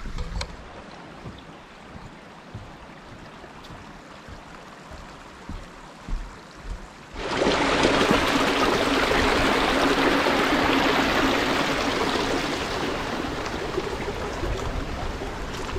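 Small freshwater creek tumbling over a rocky cascade: a loud, steady rush of water that starts suddenly about seven seconds in and eases slightly toward the end, after a quieter stretch of faint background with a few soft knocks.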